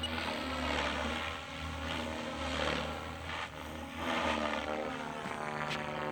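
SAB Goblin 380 electric RC helicopter in flight: a steady rotor hum under a blade whoosh that swells and fades every second or two as it manoeuvres, with the pitch shifting near the end.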